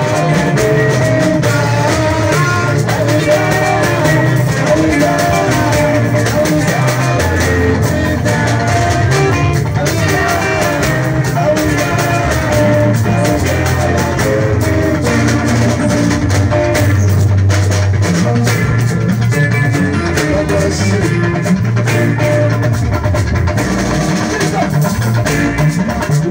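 Live band music through a PA: electric guitar lines over drums and a strong bass line, playing on without a break.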